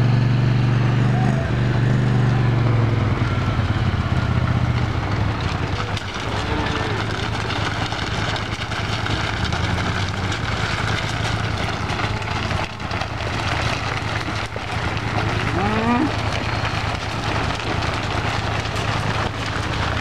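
A herd of cattle on the move, many hooves clattering and shuffling on gravel and road pavement in a dense, crackling mass of sound. A steady low hum fades out after about four seconds.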